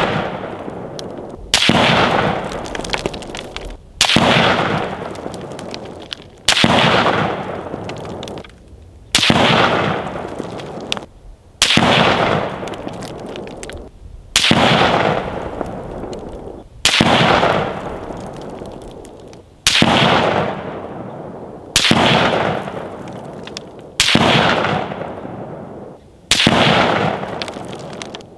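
Rifle fired at a slow, even pace, about one shot every two and a half seconds, eleven shots in all. Each report cracks sharply and then rolls away in a long echo that fades over about two seconds.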